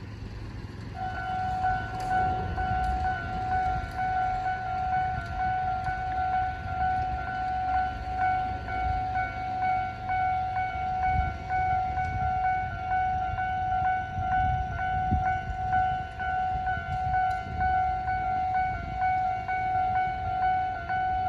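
Japanese railway level-crossing warning alarm starting up about a second in: an electronic bell ringing in rapid, evenly repeated strokes that blend into a steady high tone, over a low rumble.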